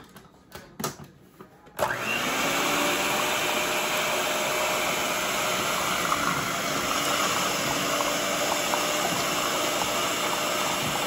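Hamilton Beach stand mixer's electric motor switched on about two seconds in, running steadily as its beaters churn sweet potato pie filling in the steel bowl. A few light clicks come before it starts.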